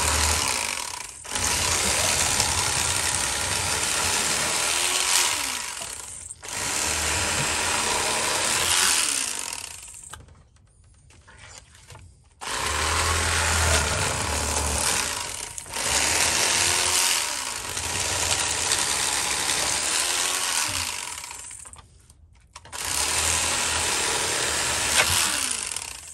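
Electric fillet knife buzzing as it saws fillets off crappie. It is switched on and off, running for stretches of a few seconds with short pauses between cuts.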